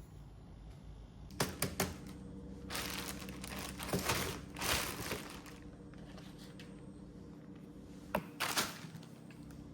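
Short bouts of rustling and crinkling with a few sharp clicks, over a steady low hum.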